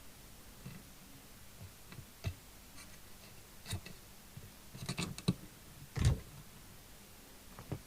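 Scattered light clicks and scrapes from handling a CB radio and its leads on a workbench, with a cluster of clicks about five seconds in and a single heavier knock about a second later.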